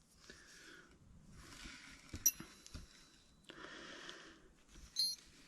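Metal hand wrenches clinking as they are handled: a sharp ringing clink about two seconds in and a smaller one near the end, with faint rustling between.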